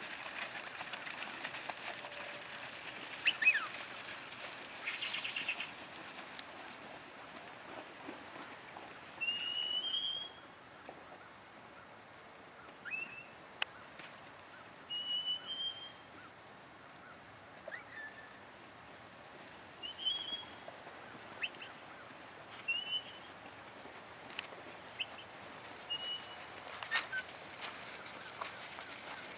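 A bird calling over and over with short rising chirps, every two to three seconds, over steady outdoor noise, with a louder rustling burst about nine seconds in.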